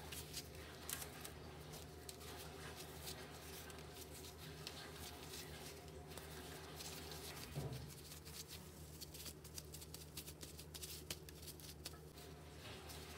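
Rubber-gloved hands handling soft, sticky bread dough: a run of faint tacky pulls, pats and crackles as the dough is torn off and rounded, over a steady low hum. A soft knock comes a little past halfway.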